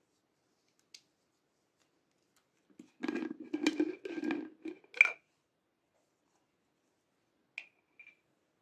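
Lid of a glass jar with a silicone sleeve being twisted off: about two seconds of squeaky grinding and rubbing, ending in a sharp click as the lid comes free. Two light taps follow near the end.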